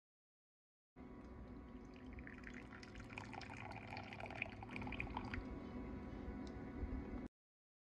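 Arabic coffee being poured into a small glass cup, a trickling splash over a low steady hum. It starts suddenly about a second in and cuts off about seven seconds in.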